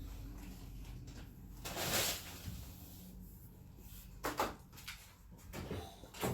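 Handling noises: a brief rush of noise about two seconds in, then a few sharp knocks over a low steady hum.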